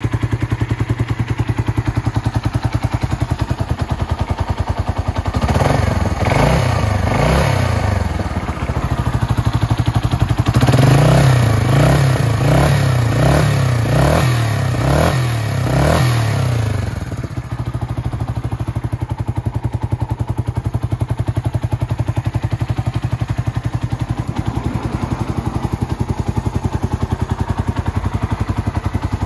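Suzuki Grasstracker BigBoy's single-cylinder four-stroke engine idling through a Supertrapp exhaust. It is blipped repeatedly in two bursts, a few revs about five seconds in and a longer run of revs from about ten to seventeen seconds, then it drops back to a steady idle.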